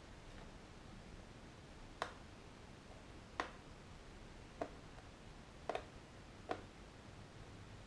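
About five sharp plastic clicks, irregularly spaced and starting about two seconds in, one of them doubled, from hands working on a black plastic drone accessory.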